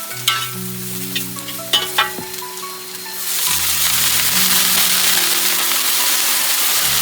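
Food frying in hot oil: a few sharp clicks, then a loud sizzle that starts suddenly about three seconds in and holds steady. Background music with held notes plays throughout.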